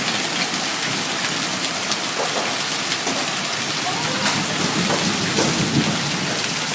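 Hailstones falling hard: a dense, steady clatter with many sharp ticks of stones striking surfaces.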